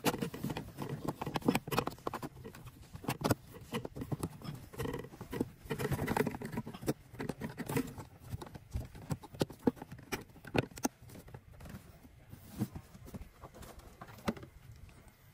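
Irregular plastic clicks, knocks and rustling as gloved hands handle the cabin air filter housing and its clip on a 2015 Nissan Dualis. The sounds are busiest in the first half and thin out near the end.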